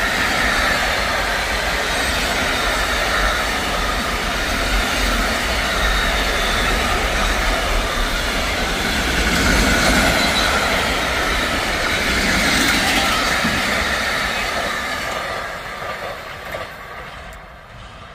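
Intermodal freight train's container wagons rolling past, with a steady noise of steel wheels on the rails. The noise fades away over the last few seconds as the end of the train passes and recedes.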